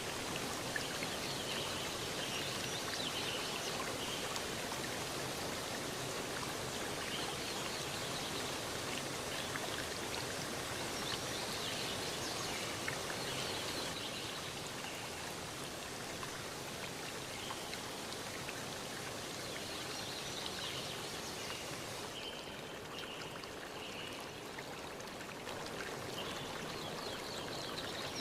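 Waterfall water rushing and splashing steadily. The top end thins out about twenty-two seconds in.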